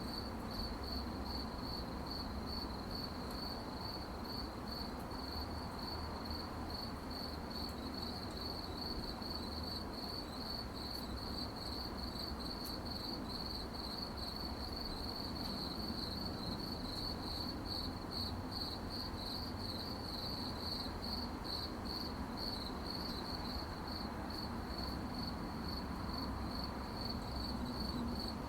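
Crickets chirping at night in a steady, continuous high-pitched pulsing chorus, over a low background hum.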